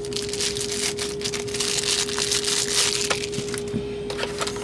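Plastic packaging bag crinkling and rustling as a radio battery is unwrapped and handled, thinning to a few small taps in the last second or so. A steady hum runs underneath.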